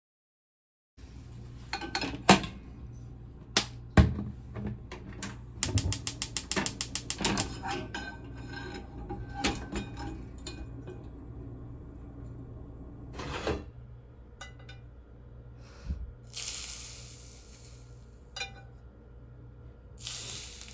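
Kitchen cooking sounds: utensils and dishes clinking and knocking, then a quick ratcheting run of about eight clicks a second lasting under two seconds. Two short hisses come near the end, all over a steady low hum.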